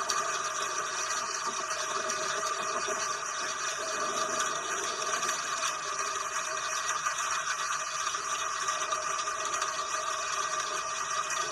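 Steady rain falling, an even hiss with no thunder.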